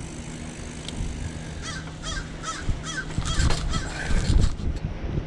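A gull giving a quick series of harsh, arching calls, about two or three a second, starting a little under two seconds in.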